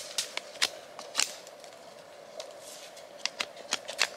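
Small side branches being cleared off a stick of wood, giving sharp cracks and snaps: a handful in the first second or so, then four more in quick succession from about three seconds in.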